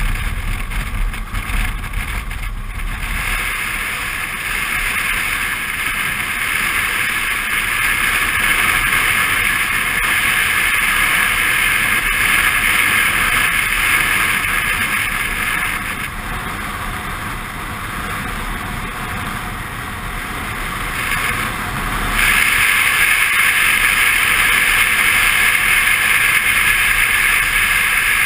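Suzuki V-Strom 650 motorcycle riding along, its V-twin engine running under a steady rush of wind and road noise on the microphone. The sound dips slightly for a few seconds, then grows louder again about three quarters of the way through.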